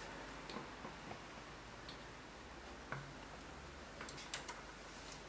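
Light, irregular metallic clicks of knitting-machine needles and a transfer tool as stitches are handled by hand on the needle bed, a few scattered ticks with a small cluster about four seconds in.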